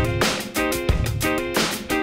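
Background music: a guitar-led track over a steady drum beat.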